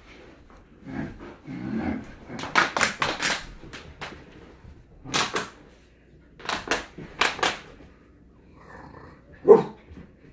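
Siberian Husky puppy barking during play, in short sharp bursts, with a louder single bark near the end.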